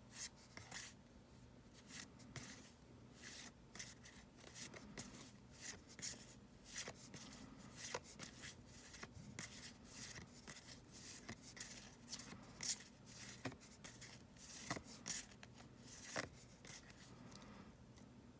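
Faint handling of Magic: The Gathering cards and their pack: a run of irregular light snaps, flicks and crinkles as cards are flipped through. It stops shortly before the end.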